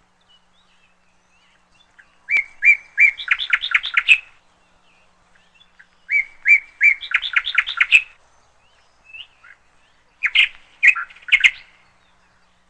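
A songbird singing three short, rapid chirping phrases, each about two seconds long and a few seconds apart.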